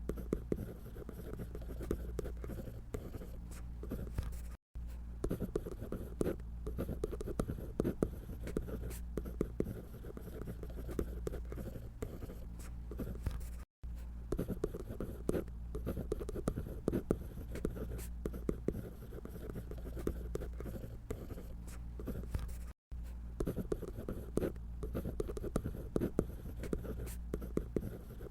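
Drawing tool scratching steadily across paper in quick, continuous strokes, over a low steady hum. The sound drops out completely for an instant three times.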